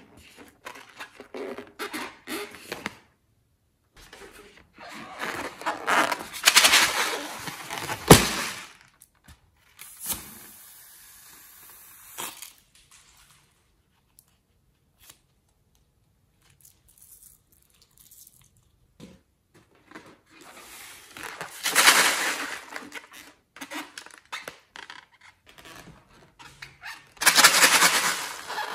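Hands handling and rubbing filled rubber balloons and cutting into one with scissors: separate bursts of rubbing and crinkling noise with quiet gaps, and a sharp click about eight seconds in.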